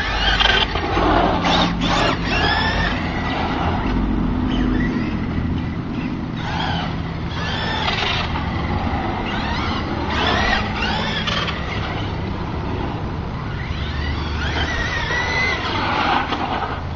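Tacon 3930kv brushless motor of an RC truck whining, sweeping up and down in pitch again and again as the throttle is punched and let off, over a steady low rumble.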